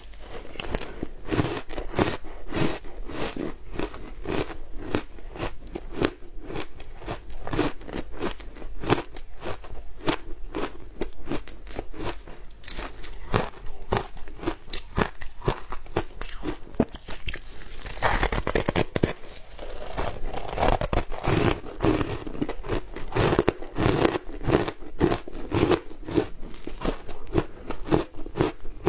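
Close-up crunching as a person bites and chews packed frozen shaved ice dusted with matcha and milk powder. It is a dense, continuous run of brittle crunches, several a second, with a louder burst about two-thirds of the way in.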